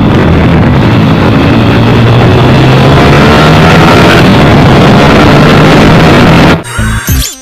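Honda Tiger Evo's single-cylinder four-stroke engine, bored and stroked to about 260 cc with a 68 mm stroke crankshaft and a 70 mm piston, revving hard and held at steady high revs. The sound cuts off suddenly near the end.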